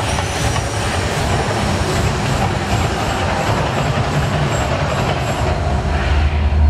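The Mirage volcano erupting: a loud, steady rumbling roar, its deep low rumble swelling near the end.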